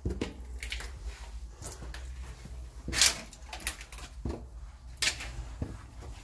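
Footsteps on gritty concrete stairs: irregular scuffs and crunches of debris underfoot, the loudest about three seconds in, over a low steady rumble.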